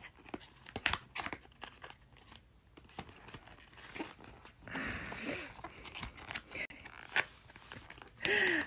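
Small cardboard advent-calendar box being handled and pried at: scattered light clicks, taps and scraping of card, with a denser rustle about five seconds in.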